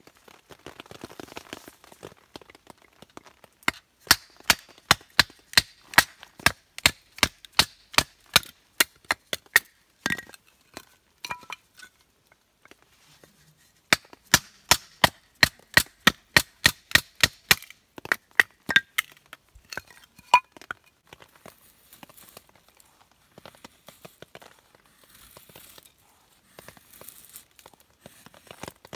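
Rapid chopping strokes, sharp knocks at about three a second, in two runs with a pause of a few seconds between them, then a few scattered knocks.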